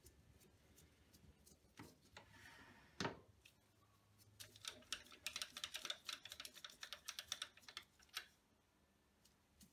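Faint light clicks and knocks of metal tooling being handled and set up on a small metal lathe, with one sharper knock about three seconds in and a run of rapid light clicks from about halfway to near the end.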